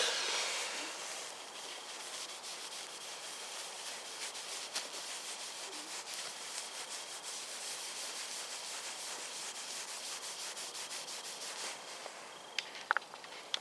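Quick back-and-forth hand rubbing on car paintwork, several strokes a second, stopping about twelve seconds in; a few small clicks follow near the end.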